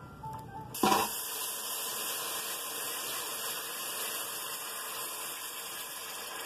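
Blended guajillo chile sauce hitting very hot oil in a pot through a mesh strainer: a loud sizzle that starts suddenly about a second in and goes on as a steady, even hiss while the sauce keeps pouring.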